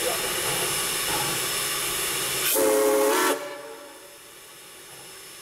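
Steam locomotive, Texas State Railroad #30 (a 1917 Baldwin 2-8-2), hissing steam steadily. About two and a half seconds in comes one short blast of its steam whistle, under a second long. The hiss falls away as the whistle ends.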